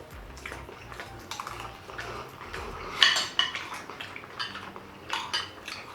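Cutlery clinking and scraping against takeaway dishes in irregular short strokes, with the sharpest clink about three seconds in.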